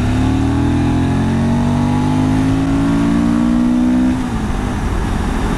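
Suzuki V-Strom 1000's V-twin engine pulling under throttle, its pitch climbing slowly for about four seconds and then dropping as the throttle eases, with wind noise on the helmet microphone.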